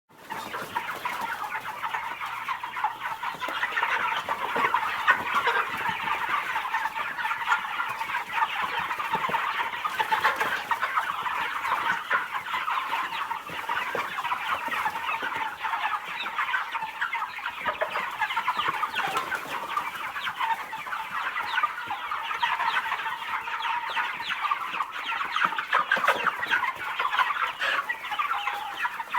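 Chickens clucking in a dense, continuous chorus of many overlapping calls, a stock henhouse sound effect.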